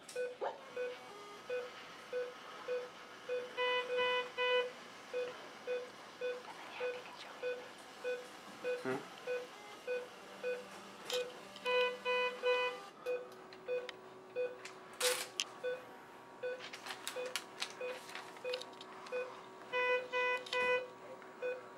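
ECG monitor beeping with each heartbeat of the dog, a short even tone about two and a half times a second. A triple beep in a higher, fuller tone repeats about every eight seconds, and a few sharp clicks sound near the middle.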